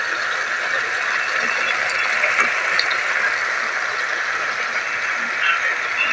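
Tofu and broccoli stir-fry sizzling in its sauce in the pan: a steady hiss with scattered small crackles.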